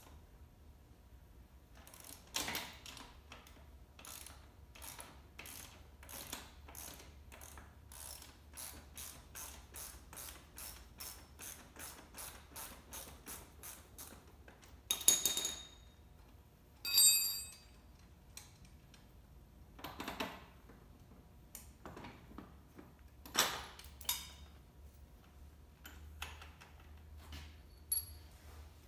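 Ratchet wrench clicking in a steady run of strokes, about two to three a second, undoing the front wheel's axle nut on a small electric ATV. This is followed by a few louder metallic clanks and clinks as tools and parts are handled, one of them ringing.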